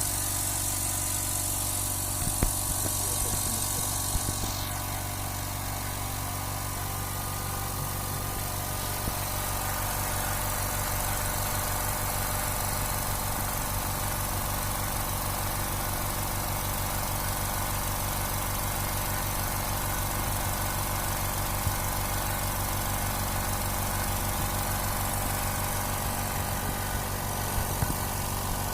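Dental air compressor's motor running steadily as it pumps air into its 30-litre tank. A high hiss sounds for the first few seconds and then cuts off.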